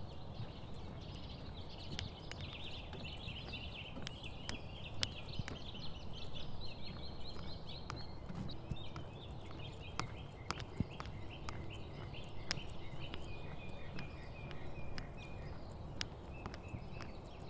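Footsteps clicking on a wooden boardwalk, about one a second, while small forest birds chirp in quick runs of high notes.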